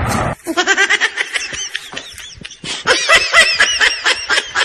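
Laughter: a quick, regular run of high-pitched laughs, following the end of a loud blast-like noise that cuts off in the first half second.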